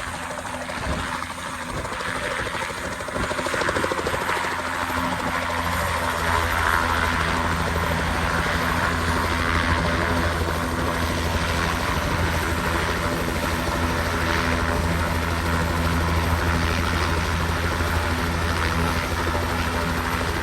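Helicopter running with a steady engine and rotor drone that grows louder over the first five seconds or so, then holds.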